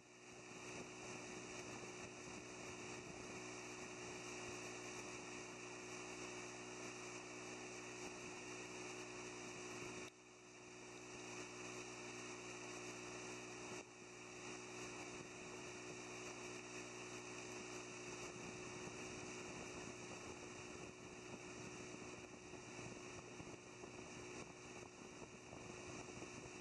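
Small boat's motor running at a steady pace, a constant hum, with a brief dip in level about ten seconds in.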